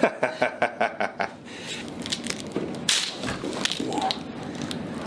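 A quick run of about nine sharp pops in just over a second, then fainter scattered clicks: joints cracking during a chiropractic adjustment.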